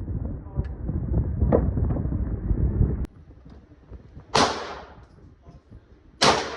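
Two gunshots about two seconds apart, each a sharp crack with a short fading echo. Before them a low rumbling noise with a few clicks cuts off suddenly about three seconds in.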